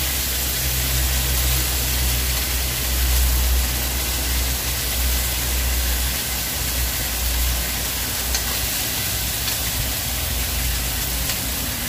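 Fish frying in a little oil in a pan: a steady sizzle with a low rumble underneath and a few faint ticks.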